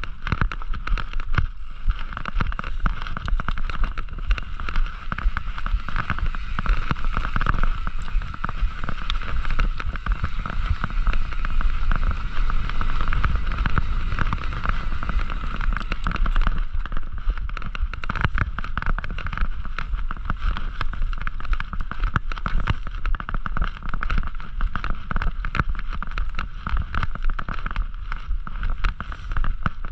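Mountain bike ridden over a rough dirt trail, heard from a camera carried on the ride: wind rumbling on the microphone, a steady whir, and continuous rapid rattling and clicking as the bike and camera jolt over the ground.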